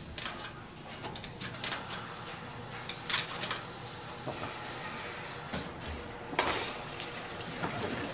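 Coin-operated front-loading washing machine being handled: scattered clicks and knocks, a sharp clack about three seconds in, then a sudden rush of noise about six seconds in that fades over a second or so.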